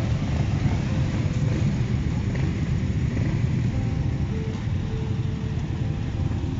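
Several motorcycle engines idling together in a steady low rumble.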